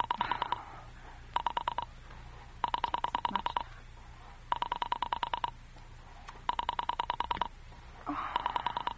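Rotary telephone dial pulsing: six quick runs of clicks at about ten a second, each run one dialled digit, as a telephone number is dialled.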